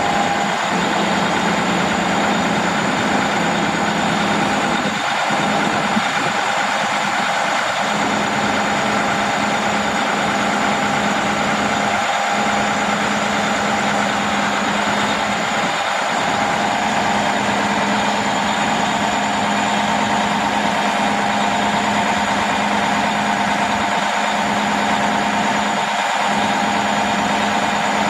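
Diesel engine of a Freightliner M2 114SD knuckleboom truck running steadily while its Fassi knuckleboom crane is operated, the boom folding in.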